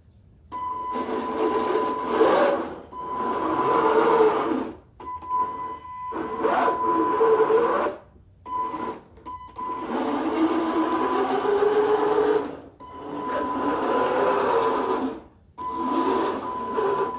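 Electric drive motors and a 3D-printed two-stage gear reduction whining as a small cart drives under a heavy load of dumbbells. It runs in a series of one- to three-second bursts that start and stop abruptly, and the pitch rises and falls with speed over a steady high whine.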